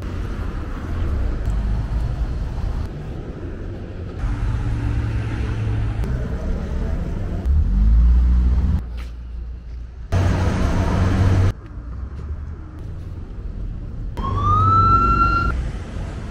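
City street traffic: cars and minibuses running past with a deep rumble, cutting abruptly between short stretches of different street noise. Near the end a single rising tone levels off and holds for about a second, like a siren.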